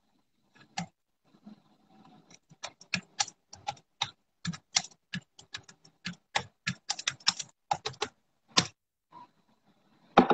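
Typing on a computer keyboard: irregular key clicks, a few at first, then several a second, stopping shortly before the end.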